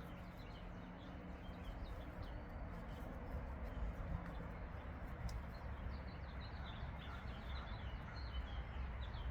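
Small birds chirping repeatedly in short high calls over a steady outdoor background hum and low rumble.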